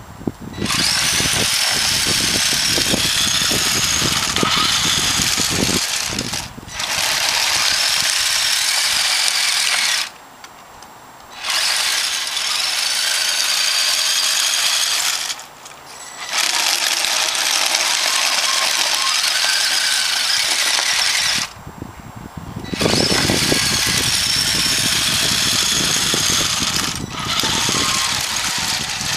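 Radio-controlled snow-plow truck running, its motor and gears whining steadily, with short pauses several times as the throttle is let off.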